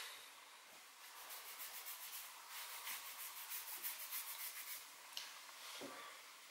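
Faint, fast, even scratchy rubbing lasting about four seconds, then a single light click and a soft low thump near the end.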